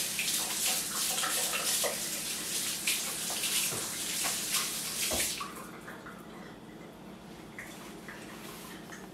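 Kitchen tap running while hands are washed under it, with small splashes in the stream. The water shuts off suddenly about five seconds in.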